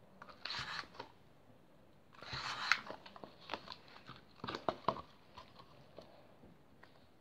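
Gloved hands pulling and working freshly made borax and PVA glue slime in a plastic tub: two short spells of handling noise, then several sharp clicks, with quiet gaps between.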